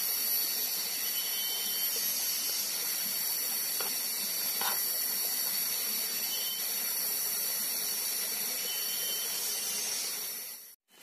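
Shallow forest stream flowing over rocks, a steady rushing and splashing of water. It cuts out for an instant near the end.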